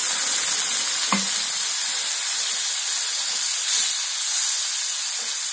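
Spiced onion-paste curry with potatoes sizzling in a hot nonstick frying pan just after water has been poured in, as it is stirred with a silicone spatula: a steady hiss, with a light knock about a second in.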